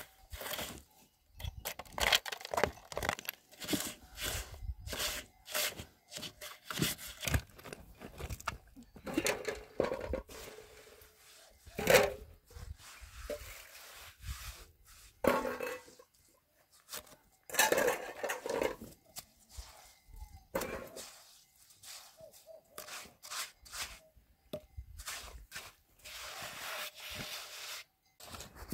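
Hand trowel scraping and spreading cement mortar, with knocks as concrete blocks are set down and tapped into place. An irregular run of scrapes and sharp knocks, one knock about twelve seconds in louder than the rest.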